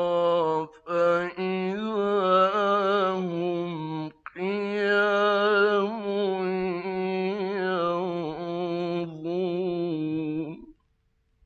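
Male Quran reciter chanting in the melodic mujawwad style: long ornamented held notes with short breath breaks about a second in and about four seconds in. The voice stops shortly before the end.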